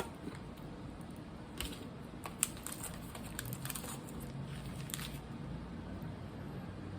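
Faint eating and handling sounds as a piece of milk chocolate is chewed: a few soft clicks and crinkles, with one sharper click about two and a half seconds in.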